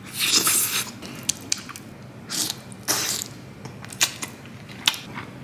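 A man eating a prawn with his fingers, close to the microphone: three short crunchy bites and chews, with sharp wet clicks of the lips and mouth in between.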